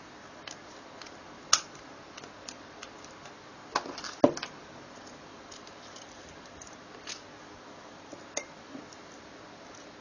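A padlock being handled and picked: scattered light metallic ticks and taps, with a few sharper clacks, the loudest a little over four seconds in.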